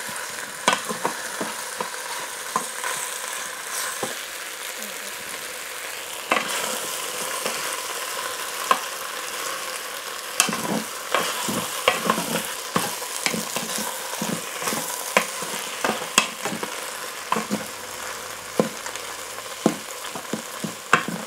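Cubes of beef brisket sizzling steadily in hot oil as they brown in an electric pressure cooker's inner pot on its browning setting. A wooden spoon scrapes and knocks against the pot as the meat is stirred, more often in the second half.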